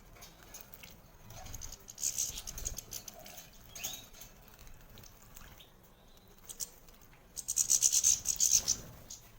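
A caged goldfinch splashing in its bath water, wings beating the water in quick fluttering bouts: a short one about two seconds in and a longer, louder one near the end, with a brief chirp between.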